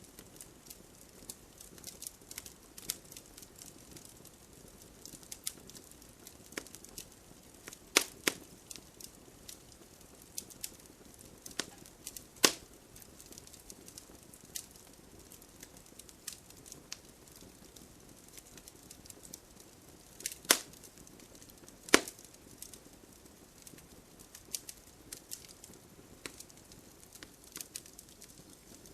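Wood fire burning in a fireplace: a low steady hiss with scattered crackles and sharp pops, the loudest about eight seconds in, twice around twelve seconds, and twice near the twenty-second mark.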